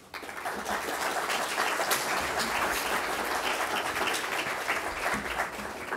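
Audience applauding. The clapping swells over the first second, holds steady, and eases a little near the end.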